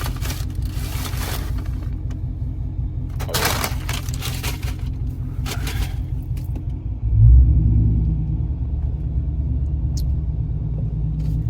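Car engine and road rumble heard from inside the cabin, growing louder about seven seconds in as the car pulls away, with a few brief noises from inside the car in the first half.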